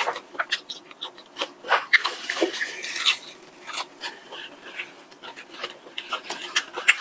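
Crunching and chewing of a crispy breaded fried chicken cutlet, the crust crackling as pieces are torn off by hand; a run of irregular crunches and clicks.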